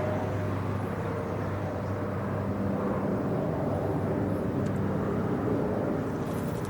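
A steady low mechanical drone with a constant hum, like an engine running in the background.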